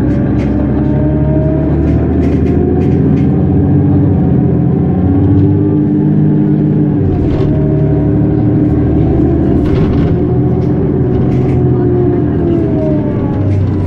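Mercedes-Benz Citaro G articulated bus's diesel engine pulling hard under full-throttle kickdown through its ZF 6HP 502C Ecomat automatic gearbox. The revs climb, drop at an upshift about halfway through, and climb again, with occasional light clicks and rattles.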